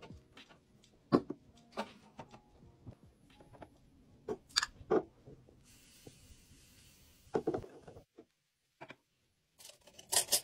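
Handling sounds of glassware: a latte glass knocking and clinking as it is lifted and set down, a soft hiss of powder shaken from a small glass shaker over milk foam around the middle, and metal spoons clattering against a glass holder near the end.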